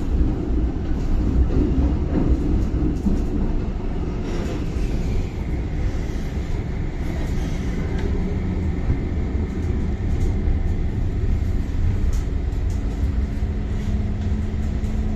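MTR Island Line M-Train running on an elevated track, heard from inside the carriage: a steady rumble of wheels and running gear. About four seconds in a whine falls in pitch, and a steady low hum joins near the end.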